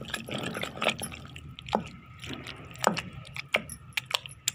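Wet tomato chutney being hand-ground in a granite mortar: wet squelching and mashing with irregular clicks and knocks of the grinding stone against the mortar.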